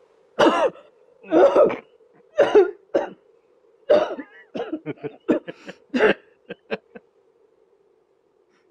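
A woman coughing hard four times, then breaking into a run of short, quick laughs that stop about seven seconds in.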